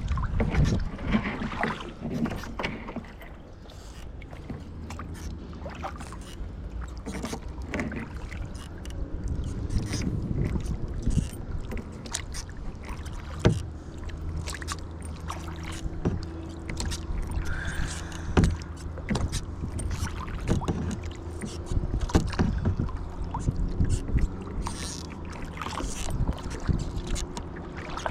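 Kayak paddling: paddle strokes in the water and water sloshing around the hull, with scattered sharp knocks throughout. It is loudest in the first couple of seconds, and a faint low steady hum runs underneath in the second half.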